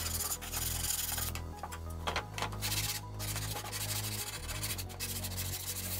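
Drill-mounted sanding disc rubbing along the edge of a plywood panel, in strokes broken by short pauses about a second and a half, three and five seconds in.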